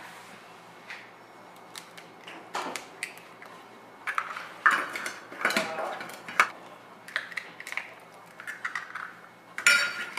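Eggs being cracked into a stainless steel mixing bowl: a scatter of sharp taps and clinks of shell against metal, the sharpest about four and a half and six and a half seconds in.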